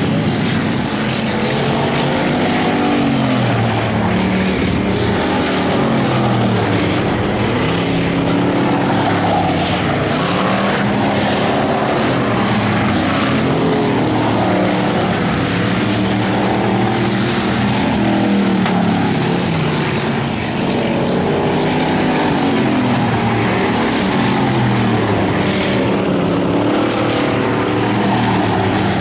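Several Bomber-class stock car engines racing together, each one's pitch rising and falling over and over as the cars accelerate and lift off around the track, overlapping one another.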